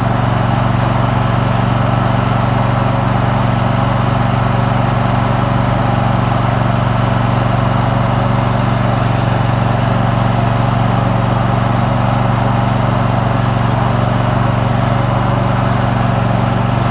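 Riding lawn mower engine running steadily at constant speed, loud and close.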